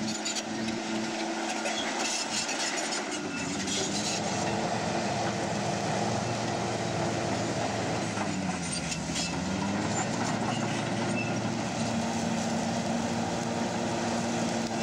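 Large crawler bulldozer's diesel engine running under load as it pushes through scrub, with metallic clanking from the tracks. The engine note sags a little past halfway and then recovers.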